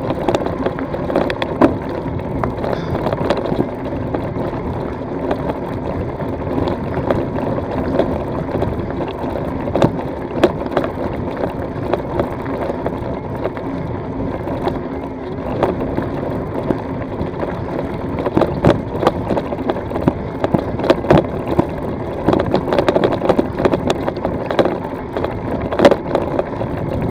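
E-bike tyres rolling and crunching over a loose gravel track, with many sharp knocks and rattles from stones and the bike, over a steady hum. The knocks come more often in the last third.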